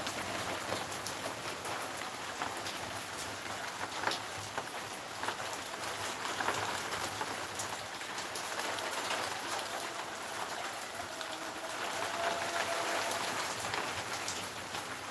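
Steady monsoon rain falling, a continuous wash of rain with many individual drops striking hard surfaces close by.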